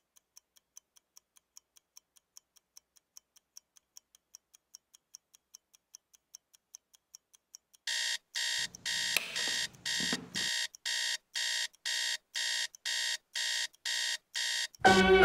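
Quartz alarm clock ticking faintly, about three ticks a second. About eight seconds in, its alarm starts beeping loudly in rapid pulses, about two a second, with a low rustle under it for a couple of seconds. The beeping cuts off near the end as music comes in.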